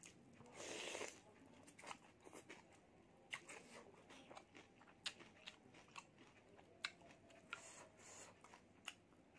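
Close-miked eating of instant noodle soup. A slurp of noodles comes about half a second in, followed by chewing with wet mouth clicks and a few sharp clicks.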